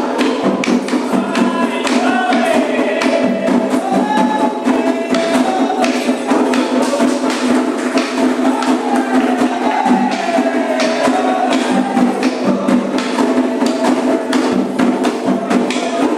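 Candomblé ritual music: a steady, fast rhythm of drums and a bright struck bell or wood-block-like percussion, with singing over it.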